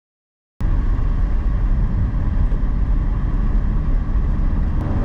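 Steady road and engine rumble of a car driving, heard from inside the cabin, starting abruptly about half a second in.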